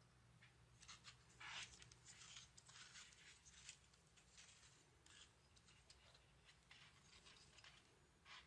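Faint handling noises as an MG996 servo in a black metal pan-tilt bracket is turned over in gloved hands: light clicks and rubbing of metal and plastic, busiest in the first few seconds.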